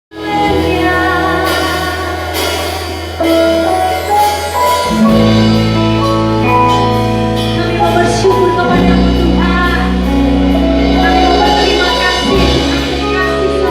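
Church worship music: sustained low chords that change about every three to four seconds, with a melody and singing above them.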